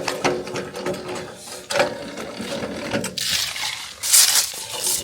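Rapid metallic ratcheting clicks of a mechanism being worked by hand, with a brief loud rushing noise about four seconds in.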